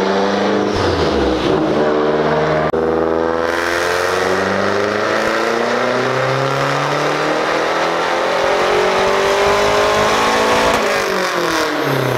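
Mazdaspeed3's turbocharged 2.3-litre four-cylinder engine making a full-throttle dyno pull. The engine note climbs steadily in pitch for about eight seconds, then falls away near the end as the throttle closes.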